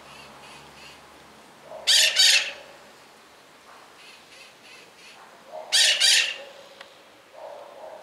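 A parrot squawking: two loud, harsh double calls, about two seconds and six seconds in, with fainter quick chirps in between.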